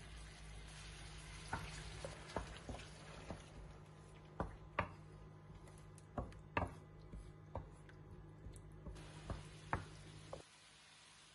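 Wooden spoon stirring tomato sauce in a stainless steel frying pan, with about a dozen irregular sharp knocks and taps of the spoon against the pan. A steady low hum runs underneath and cuts off suddenly near the end.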